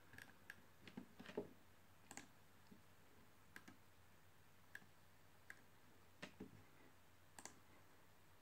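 Faint, irregularly spaced clicks from operating a computer, about ten of them, as the view switches from one scanned document to the next.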